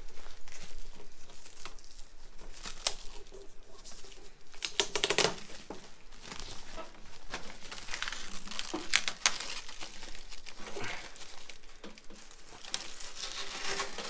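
Plastic wrapping crinkling and tearing as protective film and tape are peeled off a new microwave oven and a clear plastic bag of papers is handled. The crinkling is irregular, with a few louder rips about five and nine seconds in.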